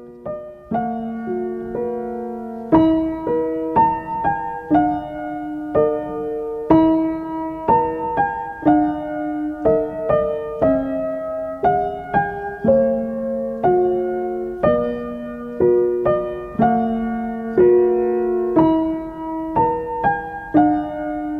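Background music: a gentle piano melody played in steady, even notes.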